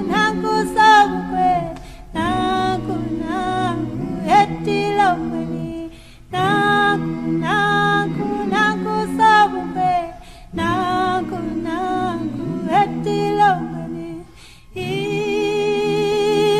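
A cappella vocal group singing in several-part harmony, in phrases with short breaks roughly every four seconds.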